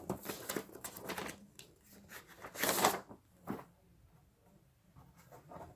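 Paper sleeve and insert rustling as a vinyl LP is handled and slid out, with light clicks and one louder swish of paper nearly three seconds in.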